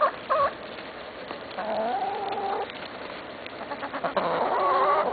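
Backyard hens making drawn-out, whining complaint calls: a few short notes, then two long held calls. They are wet and unhappy.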